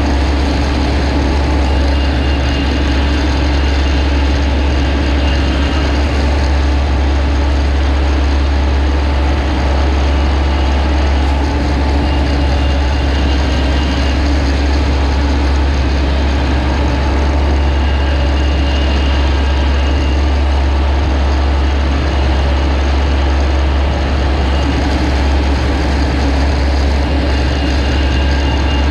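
A rice-harvesting machine, such as a combine harvester, running steadily with a deep, unbroken drone and an even mechanical noise over it. Faint short high tones come and go.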